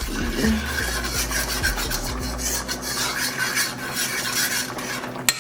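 A metal fork scraping and rubbing against the bottom of a pan as it stirs a thick, sticky teriyaki-honey sauce, a continuous rasping, with two sharp clicks near the end.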